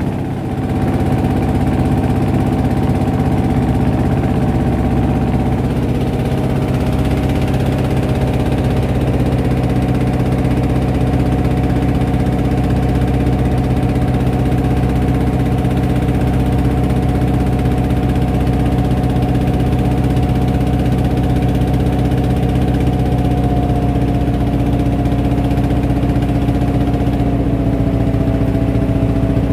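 Wooden boat's engine running steadily under way, a loud even drone holding one pitch, which drops slightly about six seconds in and again near the end.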